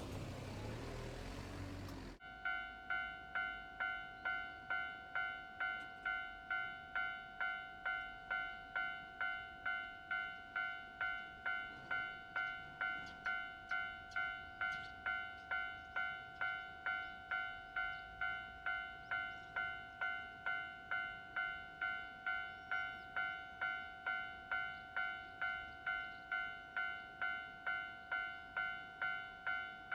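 Japanese level-crossing electronic warning bell ringing in a steady repeated clang, about one and a half strokes a second, signalling that a train is approaching. For the first two seconds a loud rushing noise covers everything, then cuts off suddenly.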